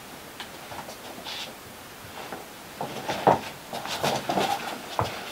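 Shuffling movement, clothing rustle and knocks of an upholstered chair as a man sits down in it, loudest about three seconds in.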